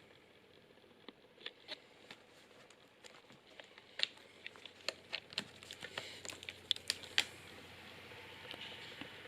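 Scattered light clicks and taps of a small laptop being handled, growing busier about four seconds in, over a faint steady hum.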